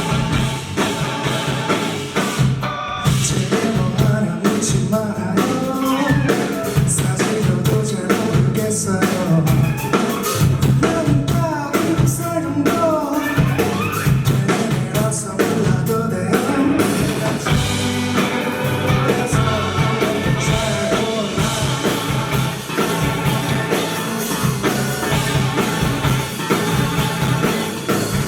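Live rock band playing with drums, guitar and a lead vocal singing, as heard in the room at a small stage.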